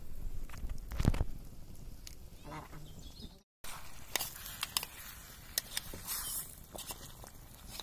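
Metal spatula clinking and scraping against a stainless-steel bowl while stirring raw marinated chicken and potato pieces, a string of sharp clicks in the second half. Earlier, a dull thump about a second in and a short animal call.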